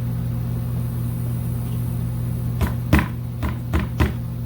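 Five short knocks in quick succession, starting about two and a half seconds in, as a motorcycle part is tapped and pushed into place by hand. A steady low hum runs underneath.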